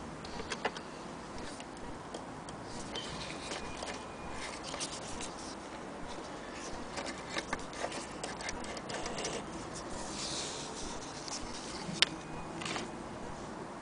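Faint, irregular light clicks and rustles from the stitched leather strip and the sewing machine being handled, with one sharp click about twelve seconds in.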